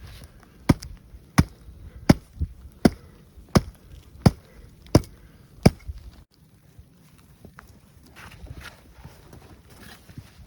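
Wood being struck repeatedly: eight sharp, evenly spaced knocks, about one every three-quarters of a second, that stop about halfway through, leaving faint rustling.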